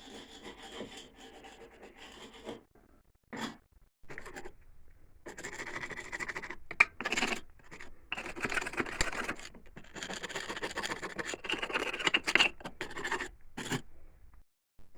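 Steel chisel scraping old mortar off fireplace bricks. It goes in repeated rasping strokes, in bursts from a fraction of a second to about three seconds long with short pauses between.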